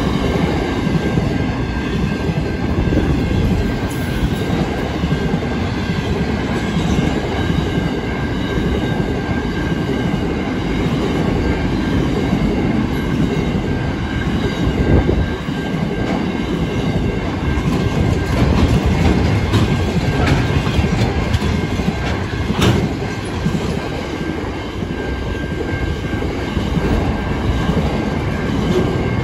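Freight train wagons rolling past close by: a steady rumble of steel wheels on the rails, with a thin high squeal from the wheels running through it. A single sharp knock stands out about three quarters of the way through.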